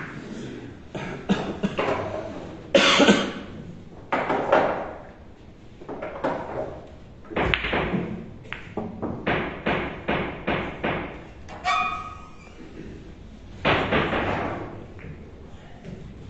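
Boccette billiard balls thrown by hand, knocking against each other and the table cushions: a string of sharp knocks, the loudest about three seconds in and near the end, with a quick even run of knocks around ten seconds in.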